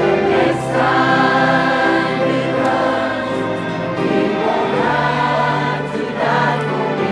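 Choir singing a gospel hymn, with long held notes over an instrumental accompaniment.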